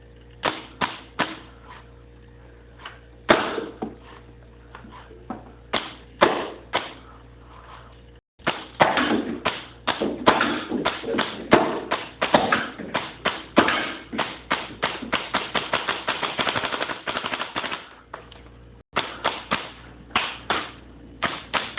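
Paintball marker firing rubber reballs at a thin pane of glass: a few scattered single shots, then a long rapid string of shots for about nine seconds, then more single shots near the end.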